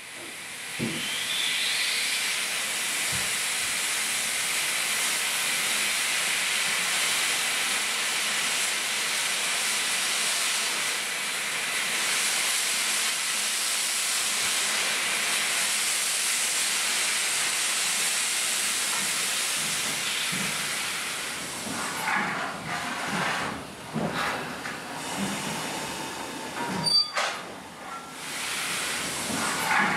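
Steam hissing steadily from the Victorian Railways K-class steam locomotive K163, then giving way about two-thirds of the way through to uneven knocks and clanks, with one sharp knock near the end.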